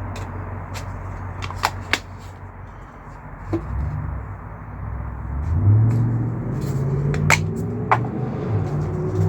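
A motor vehicle's engine running with a low rumble, growing louder and rising in pitch about halfway through, with a few sharp clicks heard over it.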